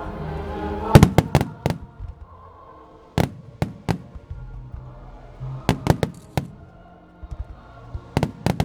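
Aerial firework shells bursting in groups of three or four sharp bangs, a cluster about every two and a half seconds, with a song playing underneath.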